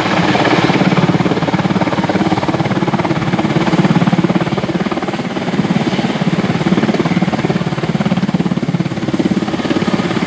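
Firefighting helicopter hovering with a slung water bucket, its rotor beating loudly in a fast, even pulse.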